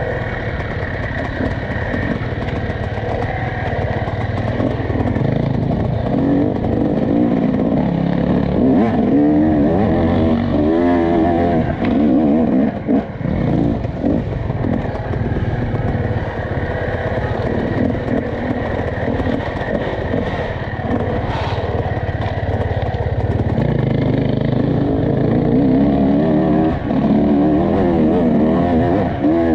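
Off-road enduro motorcycle engine revving up and down continuously as it is raced over rough cross-country ground, throttle opening and closing every second or two, with occasional clattering knocks.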